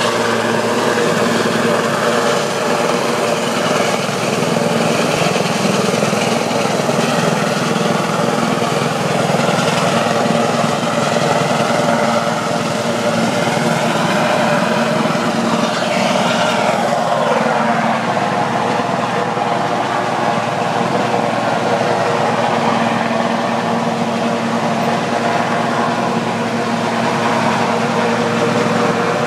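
Sea-rescue helicopter hovering low over the water: its rotor and turbines make a steady, loud drone, with a sound falling in pitch about halfway through.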